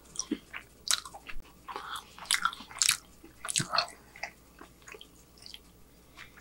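Close-miked mouth sounds of a man chewing a mouthful of burger: wet smacks and clicks, busiest in the first four seconds and sparser near the end.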